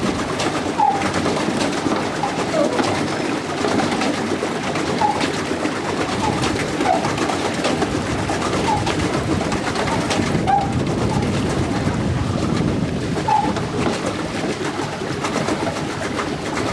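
Birds calling over a dense, steady background noise, with short chirps every couple of seconds.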